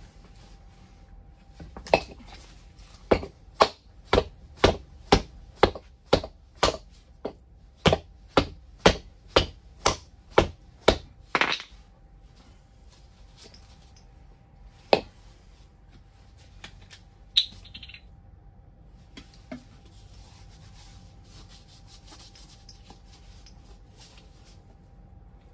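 A run of sharp knocks, about two a second for some ten seconds, as the tire on an electric scooter's hub motor is struck to break its bead loose from the rim. Two more single knocks follow, then quieter rubbing as the tire is handled.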